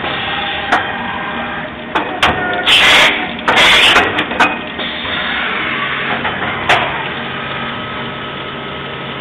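Mori Seiki MV Junior CNC vertical machining centre running, its spindle and coolant spray making a steady whine and hiss while it cuts valve bodies. Several sharp clicks come through, and two loud hissing bursts come about three and four seconds in.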